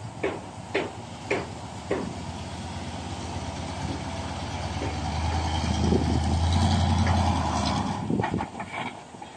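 Loaded dump truck's diesel engine running as it reverses, growing steadily louder until it eases off about eight seconds in. A few short sharp clicks sound in the first two seconds and again near the end.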